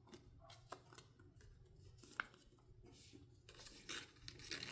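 Faint handling of a cardboard album package: a few light clicks and taps, with soft paper-and-card rustling rising near the end.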